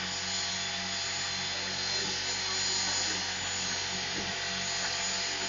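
Small radio-controlled helicopter hovering, its motor and gears giving a steady high whine over a low pulsing buzz. The onlookers take the noise for a bad gear.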